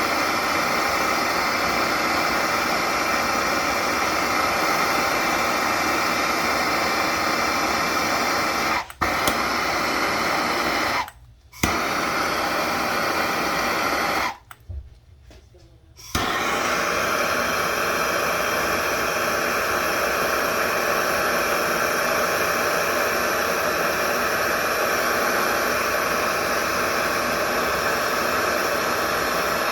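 Handheld gas torch burning with a steady, loud hiss while heating copper pipe joints for soldering. It cuts out sharply three times: a moment near 9 seconds in, about half a second near 11 seconds, and about a second and a half near 15 seconds.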